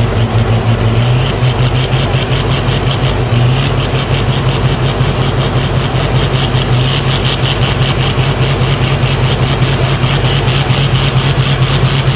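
Sport-class pulling tractor's diesel engine running hard while stationary, with a fast, even exhaust pulse. Its pitch steps up about a second in and again a couple of seconds later as it is revved.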